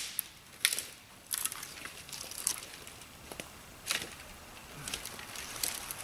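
Cut branches and twigs crackling and snapping as a pile of freshly cut brush is pulled about by hand: a string of sharp snaps at irregular intervals over a light rustle of brush.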